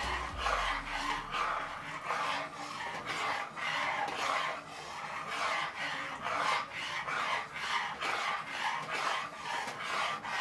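Steel spoon scraping round a pan of heating milk and custard as it is stirred, about two rasping strokes a second, keeping the custard from settling on the bottom and forming lumps.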